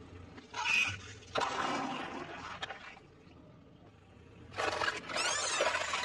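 A car tyre rolling over plastic gel-bead air fresheners, crushing them with a crackling crunch; after a short lull, the tyre crushing a plastic tray of eggs, shells cracking and plastic crackling.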